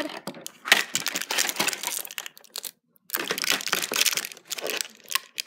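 Clear plastic packaging, a thin blister tray and its wrapper, crinkling and crackling irregularly as it is handled and pulled apart, with a brief pause about three seconds in.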